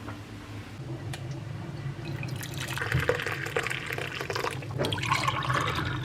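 Water running and splashing, starting about two seconds in, over a low steady hum.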